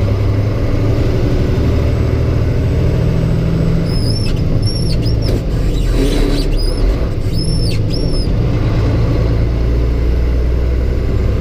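Semi-truck's diesel engine running under load in the cab during a manual upshift from seventh to eighth gear on a 10-speed transmission: the engine note dips briefly a little past halfway, then comes back lower and heavier. A few short high chirps sound over it in the middle.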